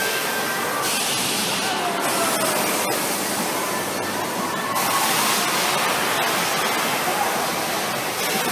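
Steady din of an indoor amusement park around a spinning kiddie helicopter ride: a dense hiss-like wash of ride machinery and crowd voices. A sharper high hiss comes in for about a second a second in, and again from about five seconds.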